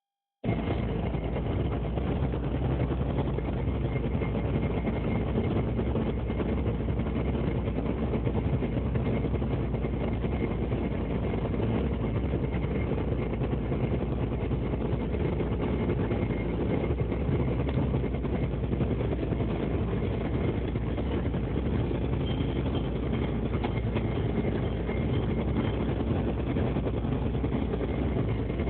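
A longline fishing boat's engine running steadily, with a faint steady whine high above it. It starts abruptly about half a second in.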